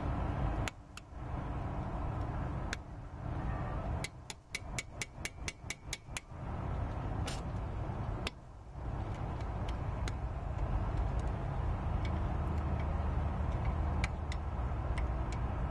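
Small metal clicks and taps of hand tools working the cotter pin and spindle nut on a truck wheel hub, with a quick run of about ten clicks around the middle. A steady low rumble sits underneath.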